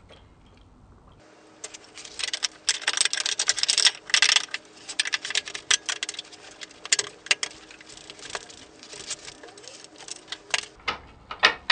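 Quad gearbox casing parts being handled and fitted together: rapid, irregular metallic clicking and clinking, starting about a second in.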